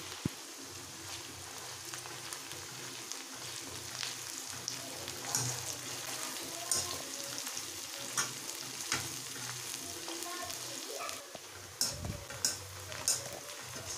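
Sliced onions sizzling steadily as they fry in hot oil in a steel kadai, with sharp scrapes and clinks of a metal skimmer stirring them, several near the end.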